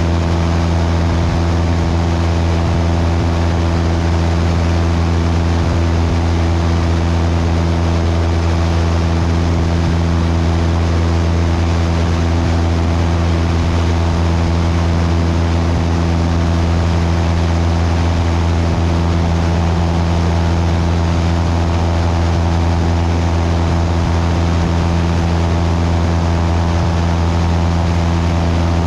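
Cessna 172's piston engine and propeller droning steadily in flight, with wind noise on a microphone mounted outside on the wing.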